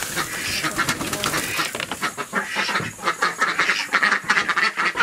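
A flock of ducks quacking loudly and over and over, clamouring to be fed.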